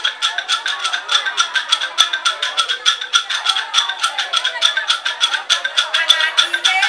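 Music driven by a fast, even rattle beat of several strokes a second over sustained higher tones.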